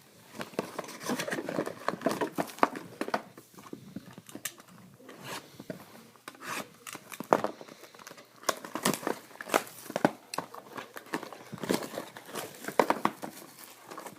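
Trading card pack wrappers being torn open and crinkled, with the cards handled. Irregular rustling and crackling with many short sharp clicks.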